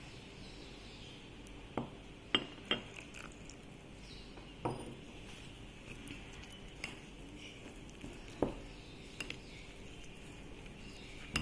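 Metal spoon stirring a thick flour batter in a glass bowl, with irregular light clinks of the spoon against the glass every second or two.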